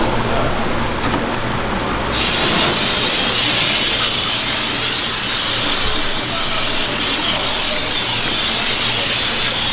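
High-pressure water hose nozzle spraying onto a gutted yellowtail and a wooden chopping block, a strong steady hiss that switches on suddenly about two seconds in.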